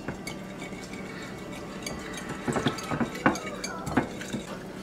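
Metal wire whisk clinking and scraping against a glass mixing bowl as it beats a thin liquid sauce. In the second half come several louder strikes that leave the glass ringing briefly.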